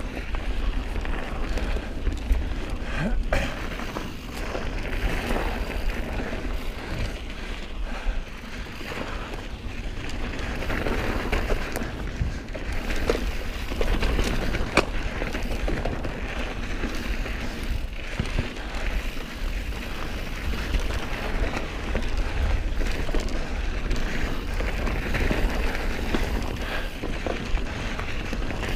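Specialized Stumpjumper mountain bike ridden fast down a dirt singletrack: a continuous rush of tyre noise and wind rumble on the camera microphone, with the bike rattling and a few sharp knocks as it hits bumps.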